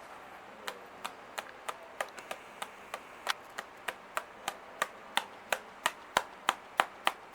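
Fireworks going off in a rapid, evenly spaced barrage: about twenty sharp cracks at roughly three a second, growing louder toward the end.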